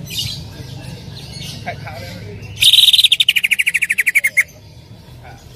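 Greater green leafbird (cucak ijo) calling: soft high chirps, then, about two and a half seconds in, a loud rapid trill of some twenty notes falling in pitch, lasting nearly two seconds and stopping sharply.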